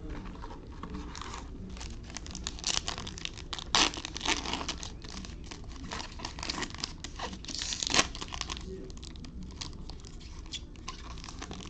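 A foil trading-card pack wrapper being torn open and crinkled by hand, with irregular crackling and two sharper rips, the loudest about four and eight seconds in.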